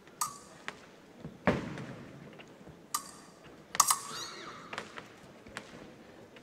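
Épée blades beating and clashing: a series of sharp metallic clanks, several ringing briefly after the hit, with a heavier thud about a second and a half in, like a foot stamping on the piste. The loudest clash comes near four seconds in and rings on for a moment.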